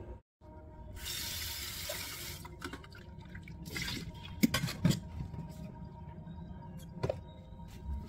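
Kitchen tap running briefly into a stainless steel pan, followed by a few knocks and clinks as the pan is handled at the sink.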